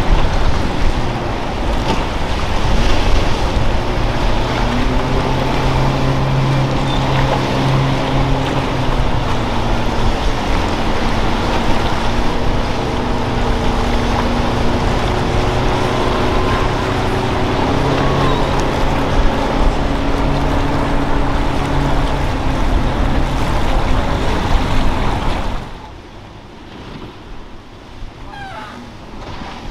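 A motorboat engine drones steadily through the middle of the stretch over loud surf, water rush and wind noise on the microphone. About 26 seconds in, the whole sound drops abruptly to a much quieter wash.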